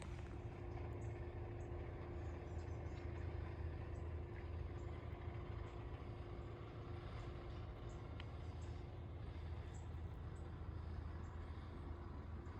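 Steady low rumble of distant industrial machinery from a quarry and cement plant, with a steady hum on top that fades out about two-thirds of the way through. Faint footsteps tick along at walking pace.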